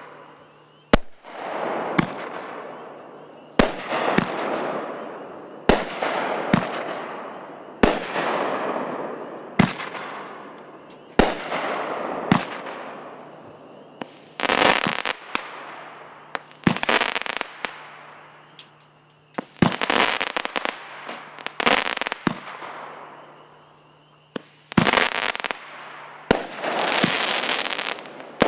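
Aerial fireworks bursting: sharp bangs every one to two seconds, each followed by a long crackling fizz that fades away. In the second half the bursts bunch into denser, longer volleys of crackle.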